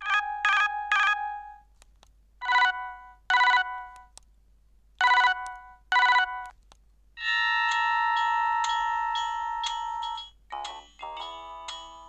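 Siemens M55 mobile phone ringtones playing: three quick electronic tones, then two pairs of short chimes. A single chord is then held for about three seconds, and near the end a new, quicker melody of rapid notes begins.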